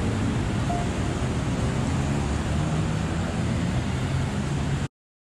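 City street traffic noise with a steady low engine hum, cutting off abruptly near the end.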